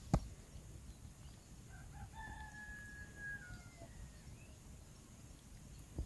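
A rooster crowing once, faintly, one long call of about two seconds that falls away at the end. A sharp knock sounds just after the start.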